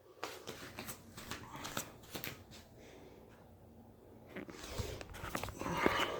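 Scattered clicks and rustling handling noise, growing louder and busier near the end.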